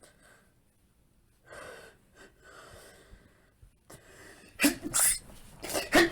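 A man's breath catching in a few gasping inhales, then a quick run of loud sneezes in the last couple of seconds, an allergic sneezing fit.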